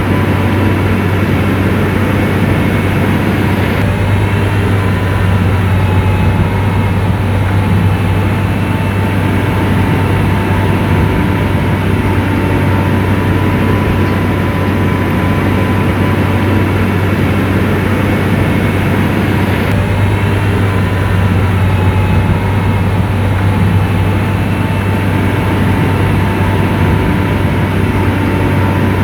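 Heavy diesel engine of an SDLG motor grader running steadily under load, a constant low drone with a whine riding on top.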